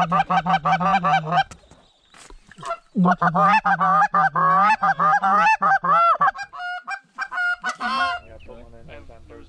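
Goose call blown hard in fast clucking runs, about eight notes a second. One run ends about a second and a half in, a longer one follows after a short gap, and a few single honks come near the end.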